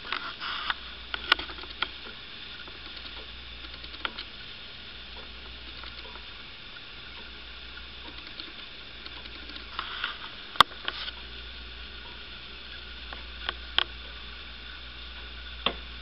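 A few scattered clicks and knocks at irregular intervals over a steady hiss and low hum. The sharpest click comes about ten and a half seconds in. There is no regular clock ticking, and no chime or music plays.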